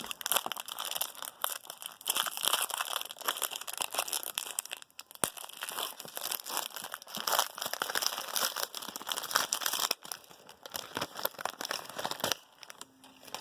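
Trading card pack wrapper being torn open and crinkled by hand: a dense, crackling rustle with a short lull about five seconds in, dying away near the end.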